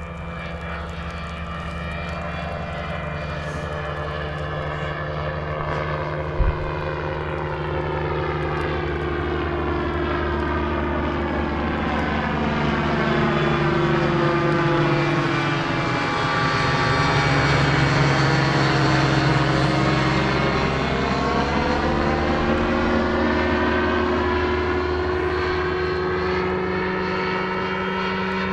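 Ultralight aircraft's propeller engine flying past: the drone builds to its loudest about two-thirds of the way through, with a sweeping change in tone as it passes, then eases off a little. A single brief knock about six seconds in.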